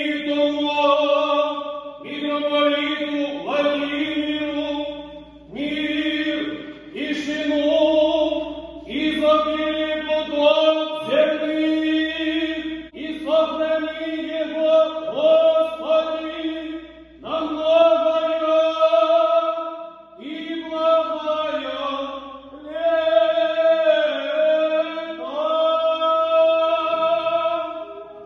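Orthodox church choir of men's and boys' voices singing a cappella, a slow chant in sustained, repeated phrases.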